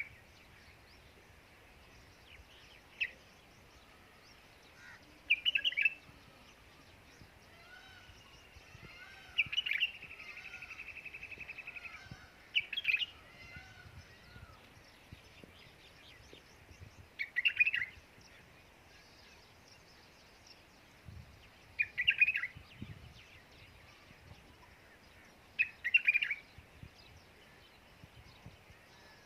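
Birds calling outdoors: short high chirping calls repeated about every four seconds, with a buzzy rattling call lasting about two seconds near a third of the way in and faint warbling from another bird around it.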